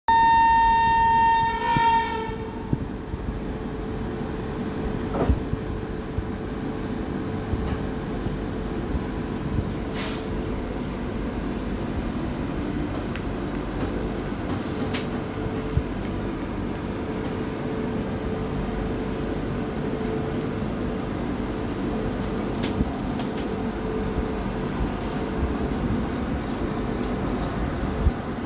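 WAP-7 electric locomotive's horn sounding one high note for about two seconds, then the steady rumble of the train's coaches rolling slowly, with scattered sharp clicks.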